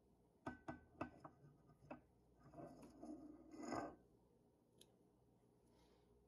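A few faint clicks and taps of a saucepan against a glass mason jar, then a soft scraping about two and a half to four seconds in, as sauce is poured and scraped from the pan into the jar.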